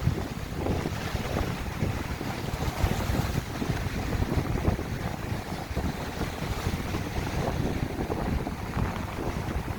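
Strong wind buffeting the microphone, a low, gusting rumble, over the sound of sea waves washing on the shore.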